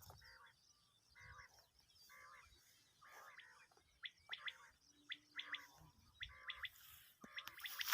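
Common quail calling faintly: soft repeated calls about once a second, then from about four seconds in short sharp notes in quick groups of two or three.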